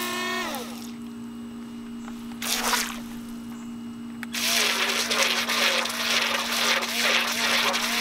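Small electric motor of a Syma remote-control jet ski whining and winding down to a stop about half a second in. A brief splash follows near three seconds, then from about four seconds in a continuous churning and splashing of water as the jet ski drives through the water.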